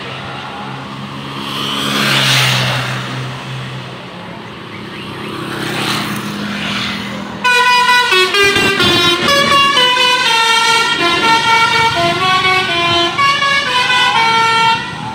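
Passing road traffic, swelling twice, then about seven and a half seconds in a bus's telolet horn, a multi-tone musical air horn, starts suddenly and loudly, stepping through a tune of changing notes until just before the end.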